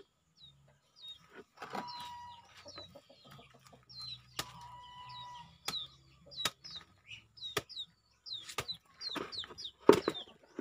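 Chickens clucking and peeping: many short falling peeps and a few longer held calls, over sharp knocks of a knife cutting into a jackfruit. The loudest knock comes near the end.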